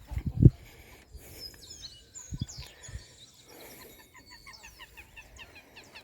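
Small birds chirping and twittering, with a quick run of short, repeated chirps in the second half. A couple of loud low thumps come near the start.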